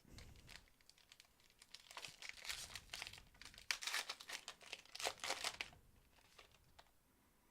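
Trading card pack wrapper crinkling and tearing as a pack is opened by hand: irregular rustles and crackles, busiest from about two seconds in to past five seconds, then fading away.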